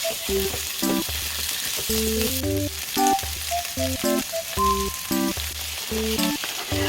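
Pork stir-fry sizzling in a hot pan, a steady frying hiss, under background music.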